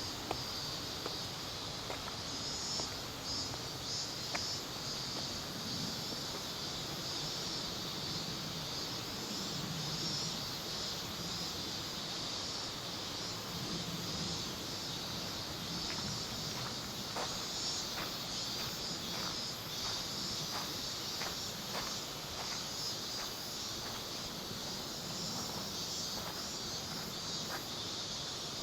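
Cicadas droning steadily in the trees as one continuous high, dense chorus. Footsteps and scattered light clicks are heard over it, mostly in the second half.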